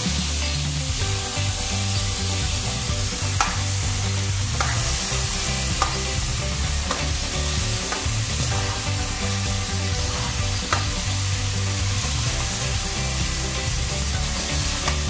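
Carrots and string beans sizzling in a hot wok as they are stir-fried with a metal ladle, with a few sharp clinks of the ladle against the wok.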